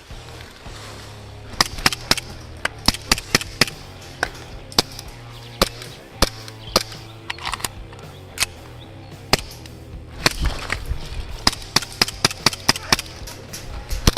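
Background music with a steady bass line, over rapid, irregular sharp cracks of CO2 airsoft pistol shots that come in clusters, one about a second and a half in and a denser one from about ten seconds in.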